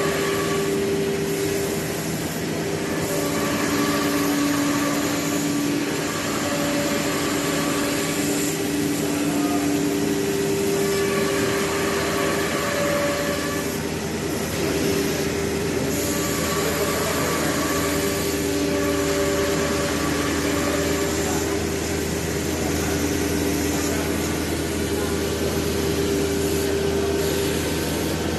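CNC nesting router running: a steady machine noise with several whining tones that fade in and out every few seconds as it works.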